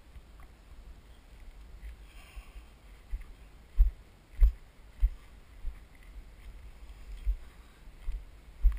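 A series of dull, low thumps at an uneven walking pace, mostly in the second half: footsteps and body movement jolting a body-worn camera as the wearer walks across grass.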